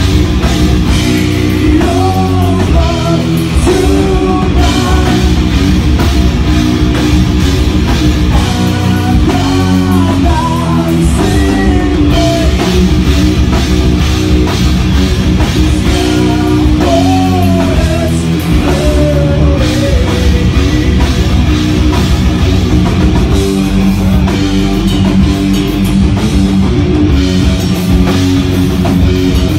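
Heavy metal band playing live, loud and continuous, with a drum kit and electric guitars. A melody line bends above the riffs for much of the first two-thirds.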